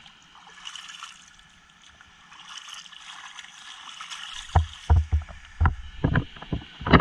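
A hand swishing and splashing through shallow water in a rock pool, a light splashing hiss. From about four and a half seconds in it is broken by a run of short, loud low thumps.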